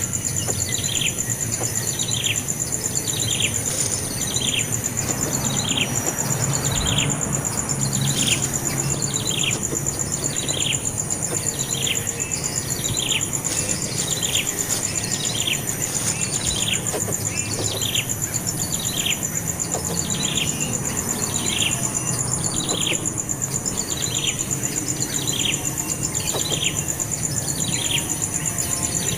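A bird calling over and over: a short, falling note repeated very regularly, about once a second, with a steady high-pitched buzz behind it.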